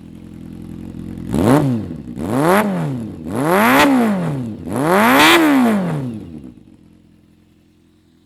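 An engine idling and revved four times in quick succession, the pitch climbing and falling back each time, before settling back to a quiet idle.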